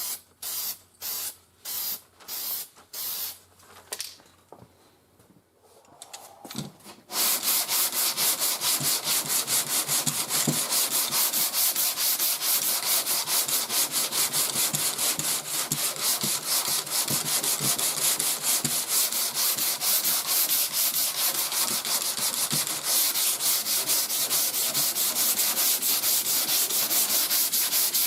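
Short hissing bursts from an aerosol spray can of black guide coat, about two a second, for the first few seconds. Then, from about seven seconds in, continuous rapid back-and-forth hand block sanding of primer surfacer on a car quarter panel with a medium sanding board, cutting the guide coat down to show the low spots.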